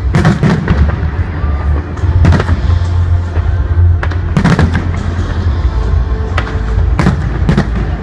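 Aerial fireworks shells bursting overhead: a series of sharp bangs, some in quick pairs and clusters, roughly every second or so.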